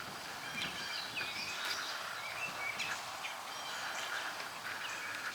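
Birds chirping here and there, short high calls over steady outdoor background noise.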